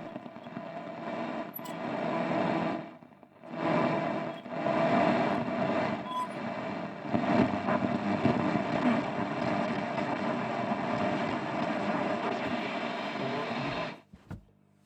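A 1951 Radionette Menuett valve radio's loudspeaker giving out short-wave static and noise as it is tuned, dipping out briefly about three seconds in, then cutting off suddenly near the end.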